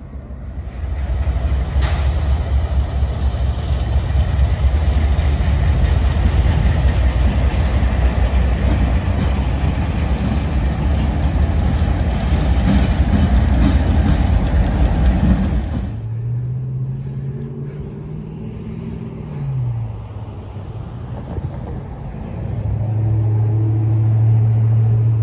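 Diesel locomotive running: a loud, heavy rumble with a hiss on top, which cuts off suddenly about two-thirds through to a quieter, lower engine drone whose pitch dips once and then holds steady.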